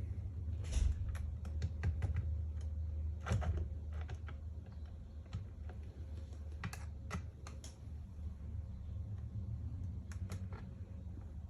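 Irregular small clicks and taps of hand assembly: small machine screws and 3D-printed plastic parts being handled and fitted, over a steady low hum.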